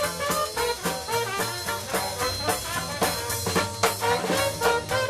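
A band of musicians playing rousing music, with brass notes over a steady drum beat.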